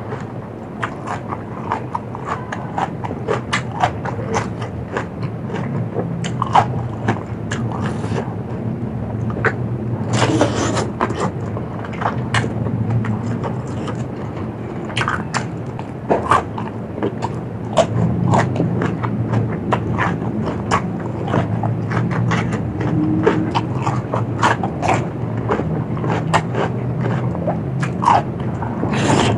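Close-up chewing and biting while eating a spicy seafood salad, with many crisp crunches and clicks at an irregular pace over a steady low hum.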